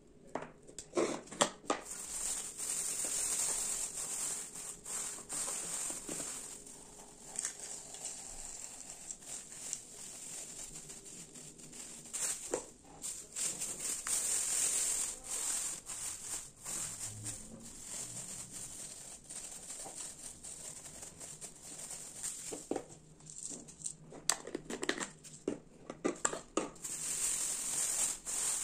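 Thin plastic bags of dried seasonings crinkling and rustling as they are handled, with frequent light taps and clicks of plastic jars and lids.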